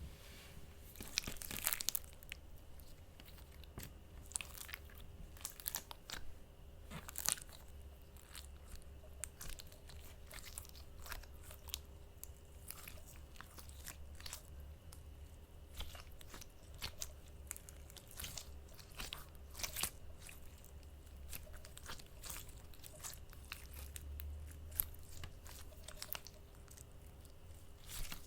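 Slime being squished and pressed by hand, giving irregular sharp clicks, pops and crackles, with a faint steady low hum underneath.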